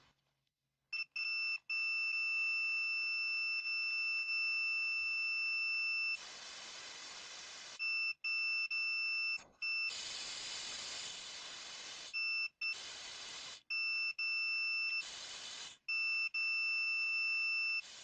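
A multimeter's continuity beeper sounds a steady high tone. It cuts out four times, for up to about two seconds, as bursts of compressed air hiss from an air blow gun into an oil pressure switch. The beep stopping under air pressure shows the switch's contact opening, the sign of a working switch.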